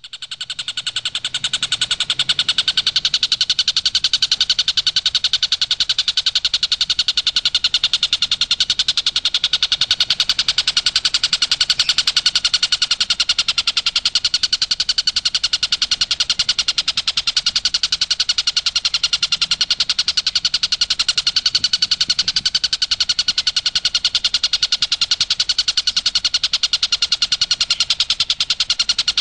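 Stork-billed kingfisher (tengkek buto) calling in a fast, unbroken rattling series of sharp notes that starts abruptly and keeps on without a pause.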